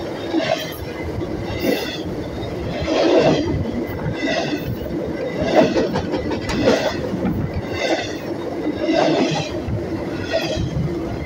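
Train rolling slowly over the microphone, its wheels coming by in a steady rhythm about once a second, each pass with a screech of metal wheel on rail.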